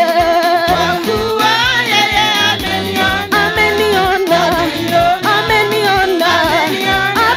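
Live gospel praise music: women singing into microphones with vibrato, over an electronic keyboard playing a repeated bass line.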